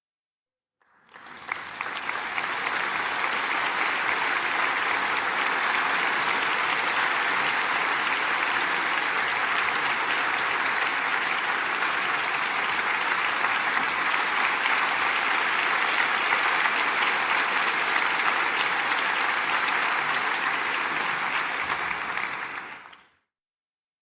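Crowd applauding: dense, steady clapping that starts sharply about a second in, holds at an even level, and dies away about a second before the end.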